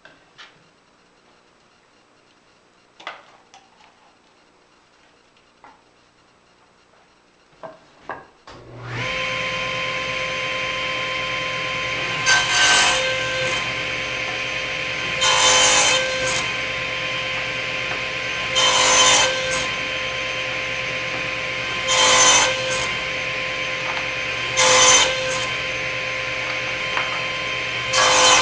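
Table saw switched on about nine seconds in after a few light handling clicks, its motor then running steadily while the blade cuts through wood about six times, roughly every three seconds. These are the passes cutting strips for homemade plate-joiner biscuits.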